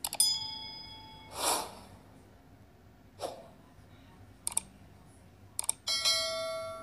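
Sound effects of a subscribe-button animation: three quick double mouse clicks, two whooshes, and two chimes. One chime is short and comes right after the first clicks; the other is a bell ding about six seconds in that keeps ringing.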